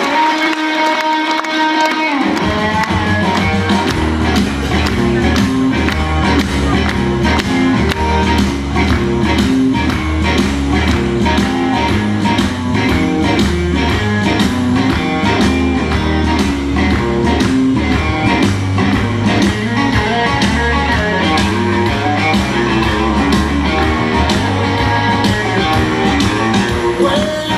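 Rock music with electric guitar: a held chord for about two seconds, then bass and drums come in with a steady beat.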